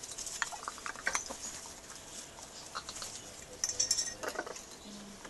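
Blue-and-gold macaw bathing in its water bowl: irregular splashes and clinks against the bowl as it dips its head and flaps its wet wings.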